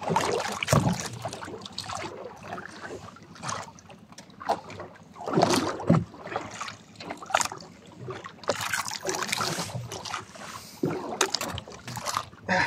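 Sea water splashing and lapping against the side of a small outrigger fishing boat as a hooked fish is lifted from the water and handled, in irregular noisy bursts.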